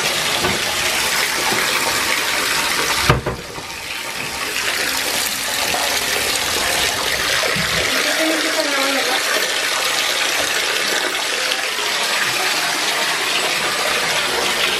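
Bathtub tap running, water pouring into the tub as it fills. There is a single sharp knock about three seconds in, and the low rumble of the water drops away a little past halfway.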